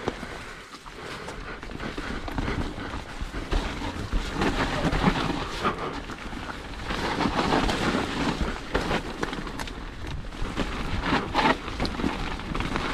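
Full-suspension mountain bike riding down a steep, muddy trail: tyres running through wet mud and the bike rattling over roots and rocks, an uneven rush of noise with many small knocks that swells about two seconds in.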